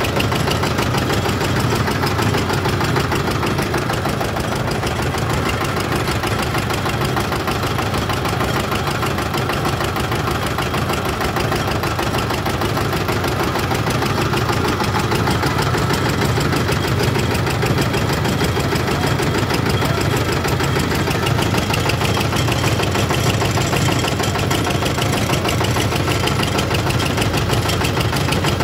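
Sewaiyan (vermicelli) extruding machine running steadily, its rotating screw pressing dough through the die.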